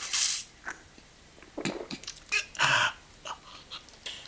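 A man drinking a small cup down in one go: a short hissing slurp at the start, then a few short gulping and breathing sounds.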